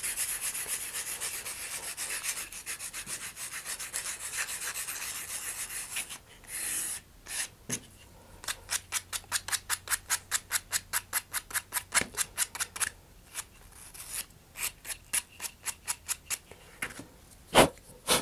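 Sandpaper on a sanding block scraping against the cut end of a paper launch lug as it is squared up. A steady scratchy rub for about six seconds gives way to quick back-and-forth strokes, about five a second, which thin out later, with one sharp knock near the end.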